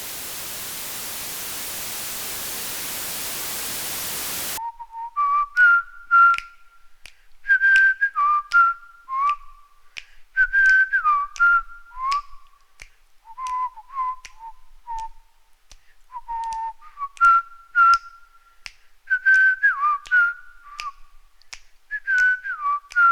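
A steady static hiss cuts off suddenly after about four and a half seconds. Then a person whistles a tune, with sharp finger snaps keeping time.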